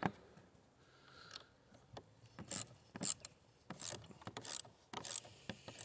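Socket ratchet clicking as it tightens the 10 mm nut on a car battery's positive terminal clamp: a run of short clicks, often in pairs, starting about two seconds in.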